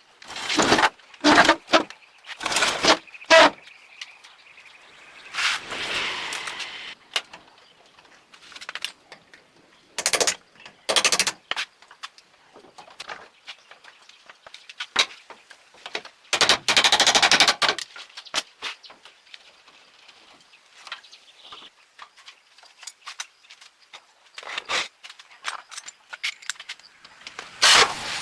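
Hand tool work on an old truck's metal parts: irregular sharp knocks and clanks in bursts, with a longer rasping noise about six seconds in and a dense run of rattling strikes around seventeen seconds.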